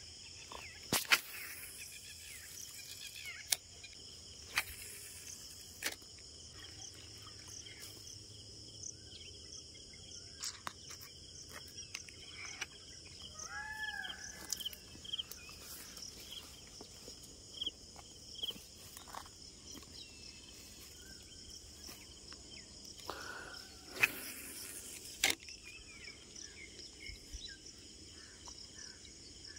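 Steady high-pitched drone of insects with a few bird chirps around the middle, and scattered sharp clicks and knocks, the loudest about 24 seconds in.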